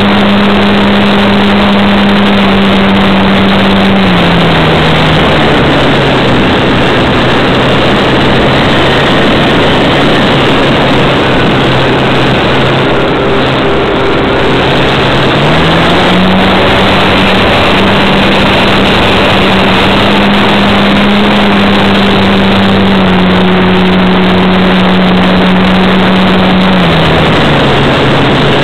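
RC model Cessna's motor and propeller, picked up by the onboard camera under heavy wind rush. The motor is throttled back a few seconds in, opened up again about halfway, and eased back near the end.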